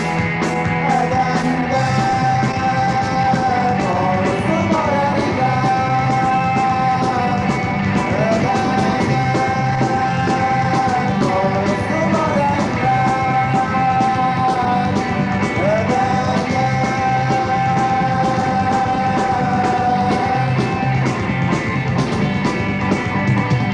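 Rock band recording from a 1985 cassette: drums, bass and guitars, with a lead line holding long notes that slide up into each new one about every four seconds.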